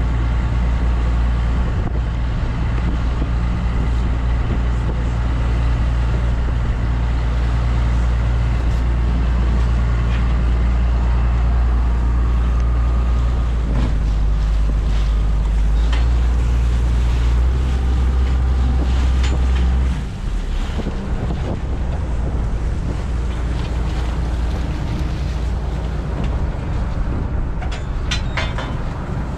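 Fishing boat's engine running steadily, a loud low hum with wind noise on the microphone. About twenty seconds in, the engine note drops lower and quieter.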